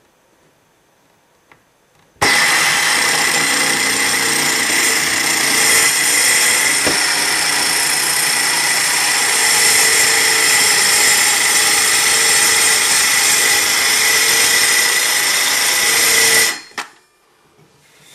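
Handheld circular saw running and ripping a shallow groove lengthwise along a wooden 1x4 board, its blade set so it doesn't cut very deep. It starts suddenly about two seconds in, runs steadily for about fourteen seconds, and stops about two seconds before the end.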